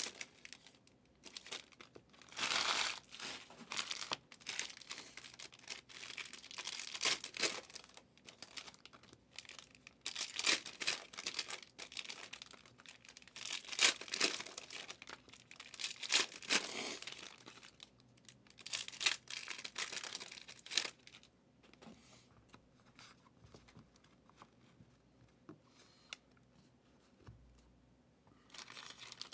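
Foil wrappers of Panini Prizm football hobby packs being torn open and crinkled by hand, in irregular bursts every few seconds. The bursts die down for the last several seconds.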